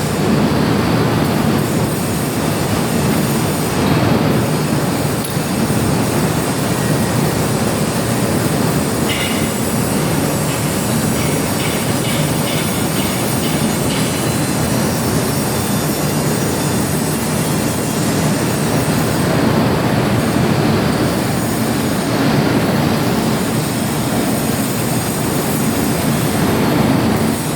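Metal lathe running steadily while machining an iron pipe, a continuous loud mechanical noise, with a light rapid ticking for a few seconds near the middle.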